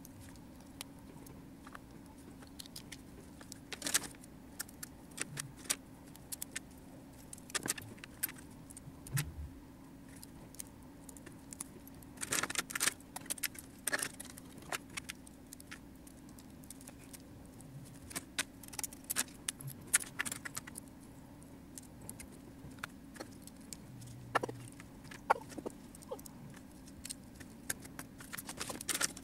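Small hard plastic model-kit parts clicking and snapping as they are handled and pressed together, in scattered irregular clicks, some bunched in quick runs. A faint steady hum runs underneath.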